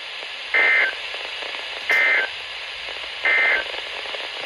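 EAS End of Message (NNNN) data bursts over NOAA Weather Radio: three short, identical two-tone digital squawks about a second apart over steady radio hiss. They mark the end of the weather alert broadcast.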